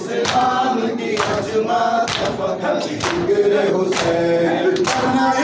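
Men chanting a noha, a lead voice with others joining in chorus, over rhythmic chest-beating (matam): sharp hand strikes about once a second keeping the beat.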